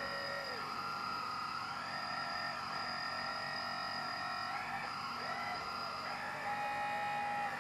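Electric hydraulic pump and drive motors of a Kabolite radio-controlled hydraulic construction model whining steadily, their pitch sliding up and down as the machine's functions are worked.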